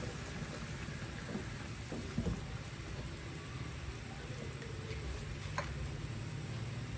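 Sinigang broth simmering in a stainless steel pot on a gas stove, a steady low rumble, as a wooden ladle stirs through it with a couple of light knocks.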